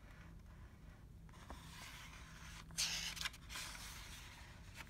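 Faint rustling and scraping of a picture book's paper pages being handled, loudest in a brief rustle about three seconds in.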